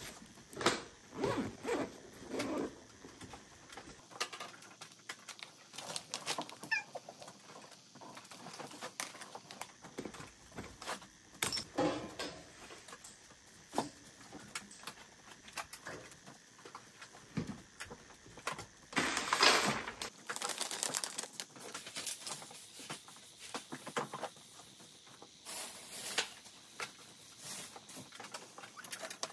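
Rustling, clicks and small knocks of household things being handled and put away, with a longer, louder rustle about two-thirds of the way through.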